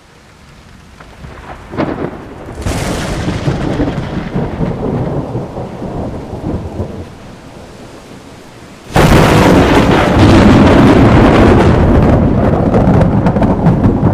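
Thunder sound effect. A rumble swells in with a crack near the start and dies down, then a sudden, very loud thunderclap breaks about nine seconds in and keeps rumbling.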